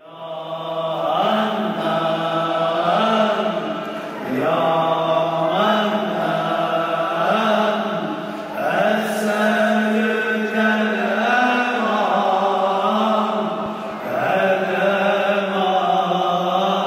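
A man's voice chanting unaccompanied in long, drawn-out, ornamented phrases, a religious chant of the Sufi kind, pausing briefly between phrases every few seconds.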